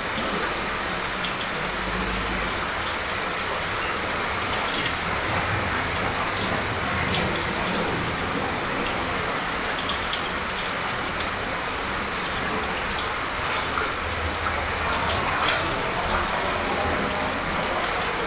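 Light, steady rain falling, with many individual drops ticking on nearby surfaces.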